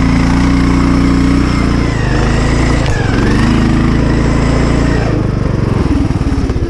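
Engine-swapped Poulan riding lawn mower's engine running hard at steady revs, its pitch dipping and recovering about two to three seconds in. About five seconds in it turns choppy and uneven.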